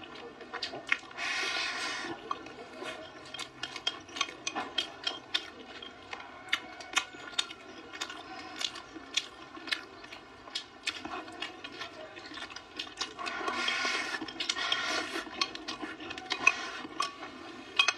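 Wooden chopsticks clicking and scraping against a ceramic bowl as rice and meat are eaten, with mouth sounds of eating. Two longer, noisier passages come about a second in and again around thirteen to fifteen seconds in.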